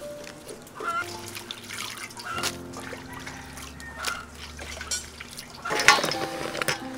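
Water splashing and dripping as wet pandan leaves are lifted out of a metal bowl of water, then a louder splash just before six seconds in as a bunch of longan fruit is tipped into a bowl of water. Soft background music plays underneath.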